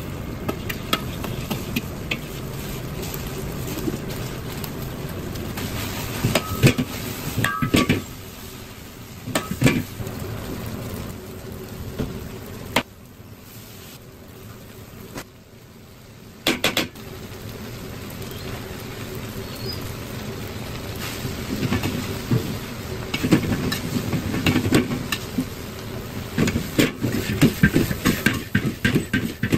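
Fried rice being cooked in an iron wok: sizzling over a gas flame with repeated clanks and scrapes of a metal ladle against the wok. It eases off for a few seconds about halfway, and the clatter grows busier near the end as the rice is tossed.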